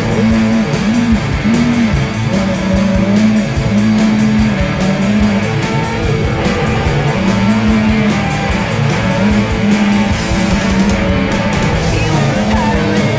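Rock music with a fast, steady beat.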